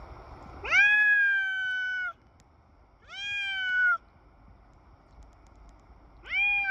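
Domestic cat meowing three times in long, drawn-out meows. Each rises sharply at the start, then holds and sags slightly in pitch. The third begins near the end.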